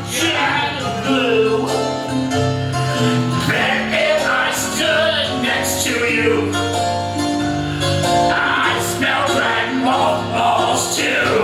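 Music: an upbeat song with a steady beat and held instrument notes, with some singing.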